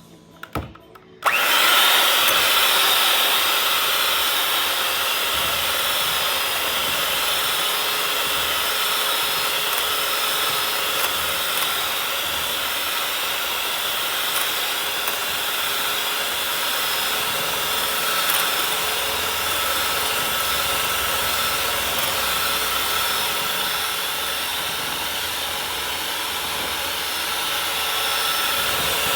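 Electric mixer running steadily with a constant motor whine, beating eggs; it switches on about a second in.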